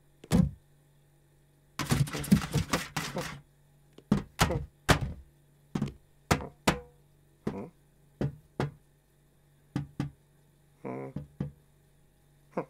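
Cartoon sound effects of a cat pawing and batting at the side of a box: a single thump, a quick flurry of rapid scratching taps, then a series of separate knocks spaced out by pauses. A short voiced sound comes near the end.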